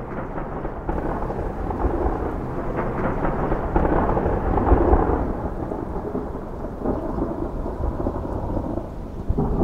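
Rolling thunder rumbling for several seconds, swelling to its loudest about four to five seconds in and easing, with rain falling. A fresh swell of rumble starts just at the end.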